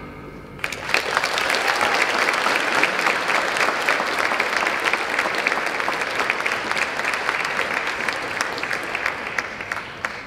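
Audience applause: many hands clapping, breaking out about a second in at the end of a song and stopping near the end.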